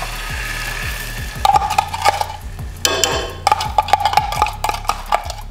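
Soy-based sauce poured into a hot saucepan of sautéed garlic and ginger, sizzling steadily. After about a second and a half come irregular clinks and scrapes of a metal spoon against the glass measuring cup and the pan.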